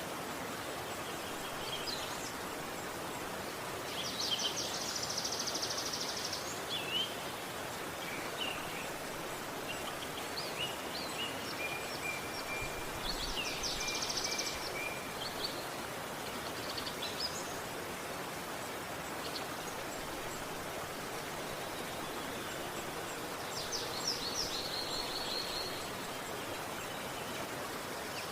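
Steady rush of flowing river water, with birds calling over it: three rapid, high trills about 4, 13 and 24 seconds in, and scattered short chirps and whistles between.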